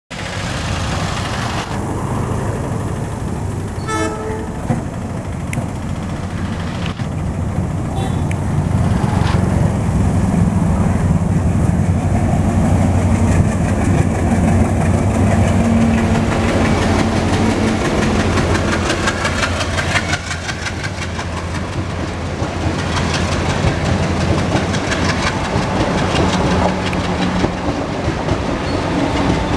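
WDM-3A diesel locomotive's engine running with a steady low drone as it approaches and passes, growing louder from about nine seconds in. The coaches then roll by with rhythmic wheel clatter over the rail joints. A brief horn toot sounds about four seconds in.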